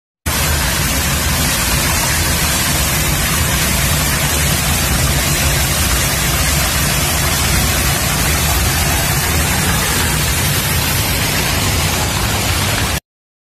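Muddy floodwater rushing and gushing with a loud, steady noise and no pauses, cutting off suddenly near the end.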